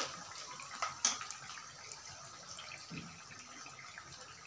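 Besan-battered cauliflower pakoras deep-frying in hot oil, a steady sizzling hiss. A few light clicks come about a second in and a soft knock about three seconds in.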